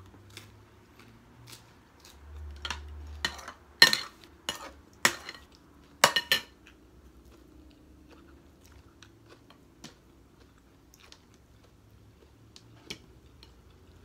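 Plates and cutlery clinking during a meal, with chewing. A run of sharp clinks comes about three to six and a half seconds in; after that only faint small clicks.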